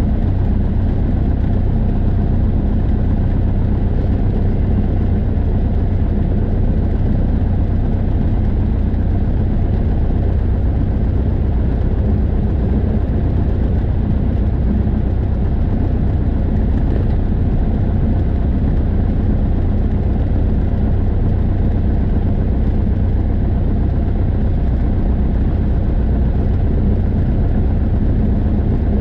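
Single-engine light aircraft's piston engine and propeller running steadily at low taxi power, heard from inside the cockpit.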